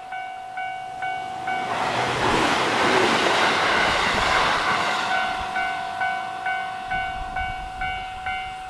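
A JR Shikoku suburban electric train passes close by at speed, a loud rush of rolling wheels lasting about three seconds. Around it a level crossing bell clangs about twice a second, and it stops right at the end.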